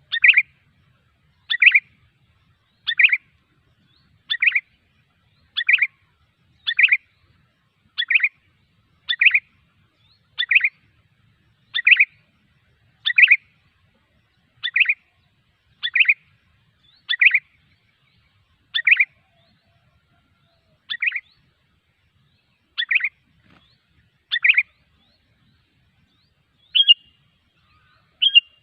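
Sooty-headed bulbul (kutilang) calls used as a lure: a short call repeated over and over, about one every second and a half, spacing out a little in the second half. The last two calls near the end are shorter and higher.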